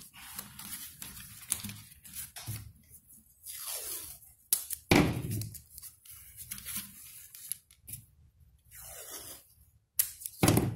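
Green painter's tape being pulled off the roll and torn into strips, several separate rips, with handling noise as the strips are pressed around a plastic bottle onto cardboard.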